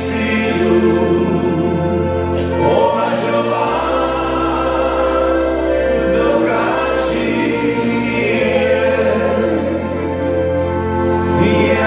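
A live band of two accordions (a button accordion and a piano accordion) and an electronic keyboard with a low bass line plays a song. Men's voices sing it together.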